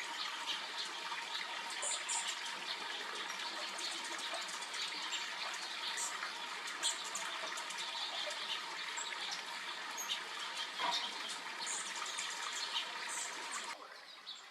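Stream water rushing and splashing steadily, then dropping away abruptly near the end.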